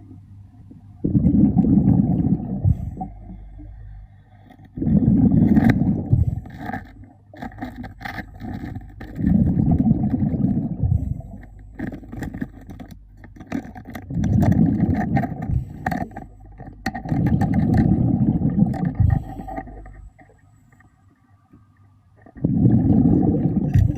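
A diver's breathing underwater: exhaled air bubbling out of the regulator in six rushing surges, each about two seconds long, about every four seconds. Faint sharp clicks run between the surges.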